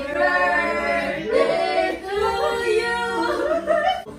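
A group of voices singing a song together, with long held notes.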